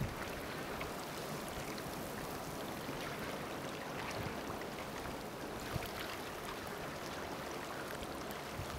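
Gentle shoreline water at a seaweed-filled rock pool: a soft, steady hiss of trickling and lapping water, sprinkled with faint crackling ticks.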